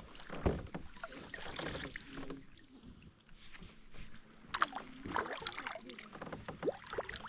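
Water splashing and lapping against a kayak drifting on a river, with scattered small knocks and taps on the hull.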